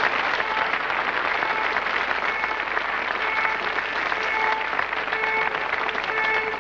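Studio audience applauding steadily, with faint held musical notes sounding under the clapping.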